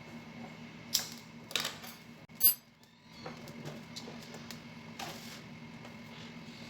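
A few sharp clicks and taps of small hard objects, the loudest a click with a brief high ring about two and a half seconds in, over a steady low hum.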